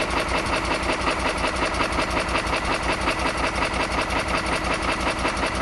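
Lego pneumatic one-cylinder engine, its cylinder ports drilled out to 2 mm, running fast on compressed air: a rapid, even chuffing and clatter with each stroke.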